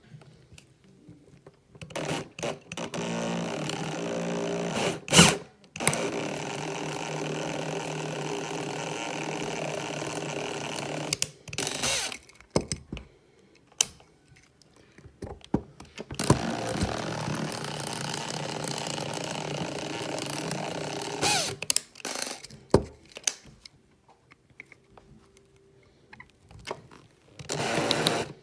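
Small power drill running in three spells of several seconds each, drilling out the rivet that holds a Hot Wheels die-cast car's base together. Short clicks and knocks fall between the spells.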